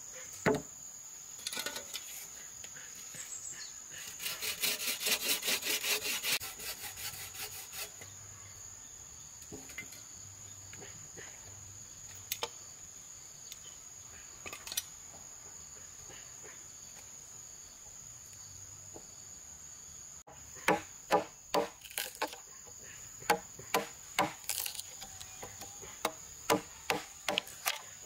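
A steel chisel is struck with a hammer, cutting a square mortise into a solid wood beam: irregular sharp knocks, one or two a second, through the last third. Before the knocks, a steady high insect buzz fills the background, with a short fast rasping burst about four seconds in.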